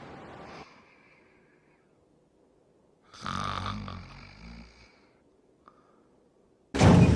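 A sleeping person snores once, one drawn-out snore of about a second and a half. A loud noisy sound cuts in suddenly near the end.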